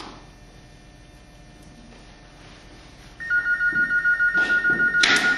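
A telephone rings with a warbling two-tone electronic ring, starting abruptly about three seconds in and loud from then on.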